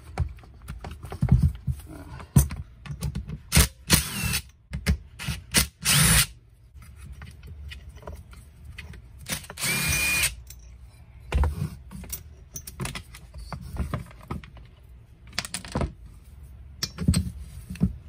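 Cordless impact driver running in several short bursts, the longest about a second, as it backs out the screws holding a chainsaw's handle and housing. Between the bursts come clicks and knocks of tools and plastic parts being handled.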